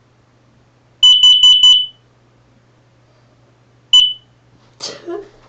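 Smoke alarm sounding during a test-button check: four quick, very loud, high-pitched beeps, then a single beep about two seconds later.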